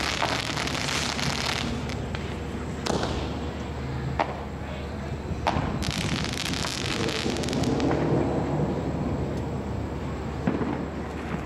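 Fireworks going off: three sharp cracks a second or so apart, between two stretches of hissing spray.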